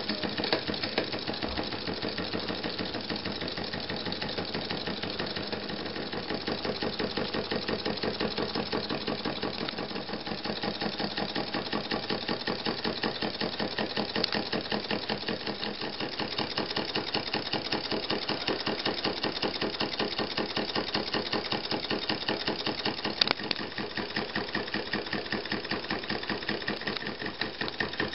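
Small brass single-cylinder, double-acting slide-valve model steam engine running on compressed air, giving a rapid, even train of exhaust puffs.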